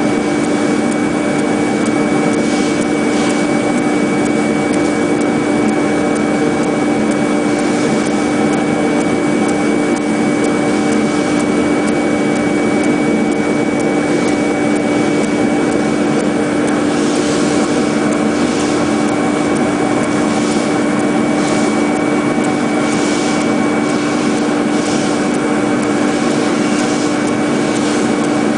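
CNC contour foam cutting machine running: a steady motor hum with a thin high whine over it, and short hissy swishes that come and go as the cutting blade works through the foam, more often in the second half.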